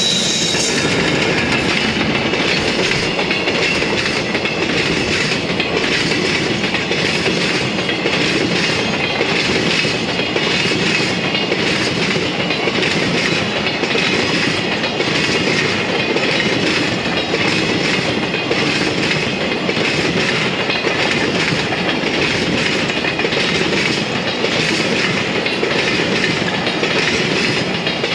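Empty container flat wagons of a freight train (Koki 104 and Koki 107 types) rolling past close by at a steady speed, their wheels clattering over the rail joints in an even rhythm over a continuous rumble.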